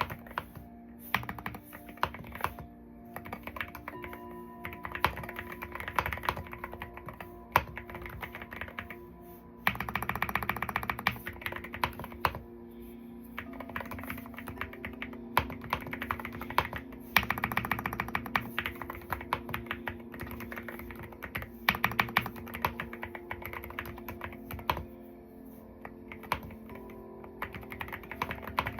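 Typing on an Akko wooden mechanical keyboard: irregular key clicks, with quick runs of fast typing about ten seconds in and again around seventeen and twenty-two seconds. Soft background music with sustained tones plays underneath.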